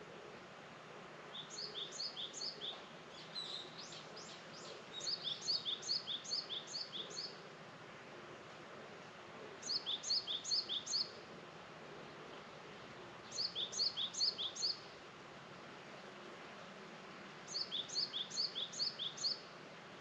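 A small songbird singing several short phrases of rapid, high-pitched chirping notes, each phrase lasting one to two seconds and coming back every few seconds, over a steady faint outdoor hiss.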